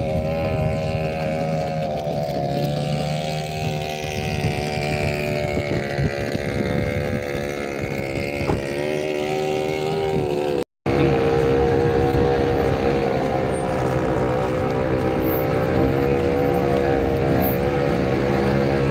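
Car engine and road noise heard from inside a moving car: a steady drone that wavers slightly with engine speed, cutting out for a moment about eleven seconds in.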